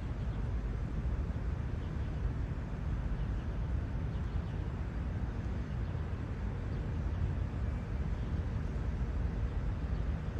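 Steady low rumble of outdoor background noise, with no distinct sounds standing out.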